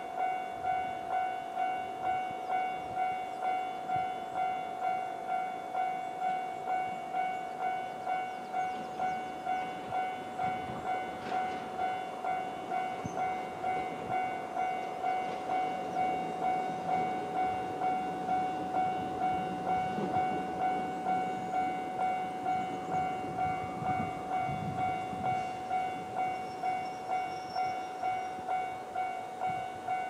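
Japanese level-crossing warning bell ringing its standard alarm sound: an electronic ding repeating evenly a little under twice a second while the crossing is active. A low rumble swells and fades under it around the middle.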